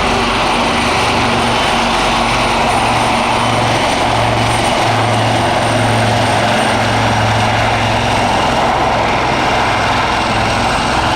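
Two Wildcat helicopters hover-taxiing close by: steady, loud rotor and turbine noise with a pulsing low hum and a thin high whine.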